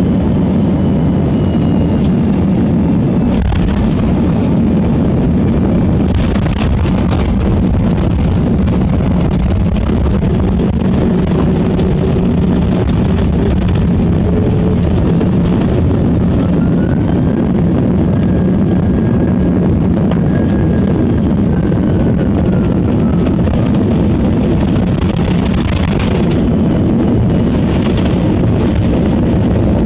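Airbus A330-300 cabin noise while the airliner rolls along the runway after landing: a steady low rumble of engines and wheels. A faint whine rises and falls in pitch midway, and a few brief knocks come through.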